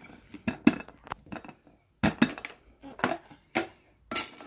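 A run of sharp plastic clicks and knocks as the snap-lock lid of a plastic dog food container is unclipped and handled, then, near the end, a dense rattle of dry kibble as a stainless steel bowl scoops into it.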